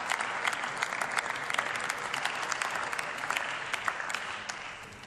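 Applause from a group of members of parliament: many hands clapping, thinning out and fading near the end.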